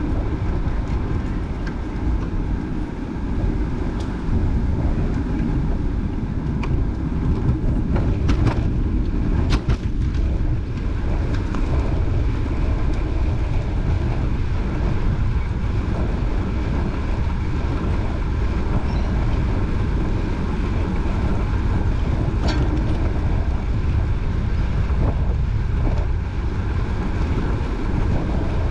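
Wind buffeting the microphone while moving into a headwind: a loud, steady low rumble, with a few brief clicks about nine seconds in and again later.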